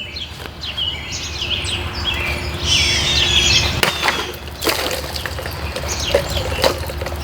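Small songbirds chirping and singing in quick repeated phrases, with three sharp knocks in the second half.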